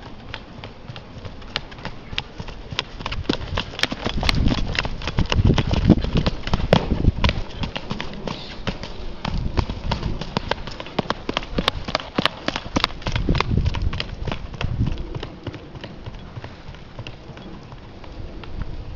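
Horse's hooves clip-clopping in a quick run of sharp hoofbeats as it is ridden, thinning out near the end, with stretches of low rumble in between.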